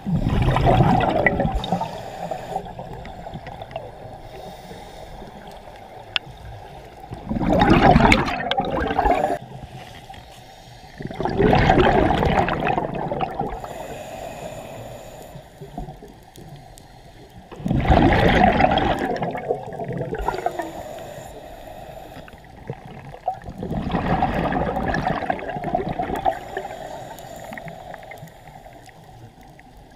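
Scuba diver's regulator exhalations heard underwater: five gurgling bursts of exhaled bubbles a few seconds apart, each lasting two to three seconds, with quieter gaps between them while the diver breathes in.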